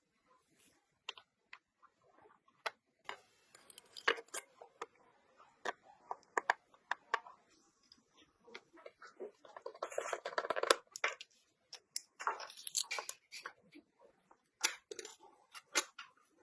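Irregular clicks, taps and short scraping sounds of small hard parts being handled and worked by hand, with the longest and loudest scrape about ten seconds in.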